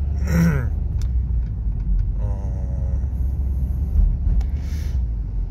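Steady low rumble of a car's engine and road noise, heard from inside the cabin while driving in slow city traffic.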